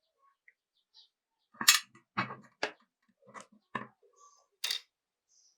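Sharp mechanical clicks and knocks from handling a pistol's metal parts and tools, about six of them at uneven intervals, the loudest a little under two seconds in.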